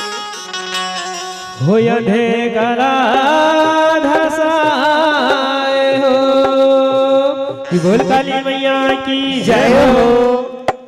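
Chhattisgarhi jas devotional song: long held sung notes, wavering in pitch, over drum and melodic instrumental accompaniment, with a sliding vocal note near the end.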